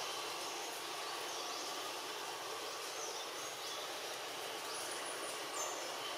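Steady outdoor forest ambience: an even hiss of background noise, with a few faint, short, high bird chirps scattered through it.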